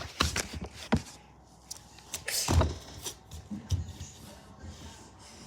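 Scattered soft thumps and rustles from a person moving about, with a louder thump about two and a half seconds in.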